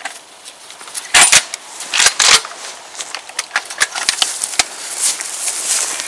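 Metallic clicks and clacks of a shotgun being handled and loaded, with two louder clusters of clacks about one and two seconds in and lighter clicks after.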